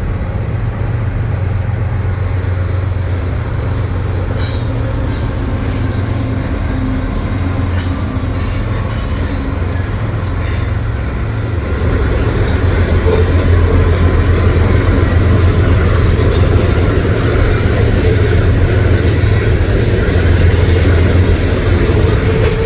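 Freight train passing close by behind GE diesel locomotives: a steady low engine rumble that grows louder about halfway through, with rail wheels squealing in short bursts over the passing cars.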